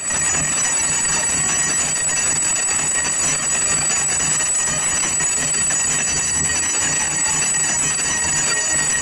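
Temple bells ringing without pause in a dense metallic jangle, with a low, regular pulse underneath. It starts suddenly.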